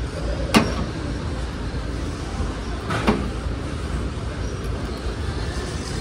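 Steady low rumble of a large store's background noise, with two sharp knocks about two and a half seconds apart, the first the louder.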